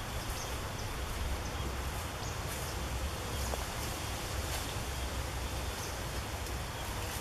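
Steady outdoor ambience among dense vegetation by a creek: an even hiss with a low rumble underneath, and faint short high chirps scattered through.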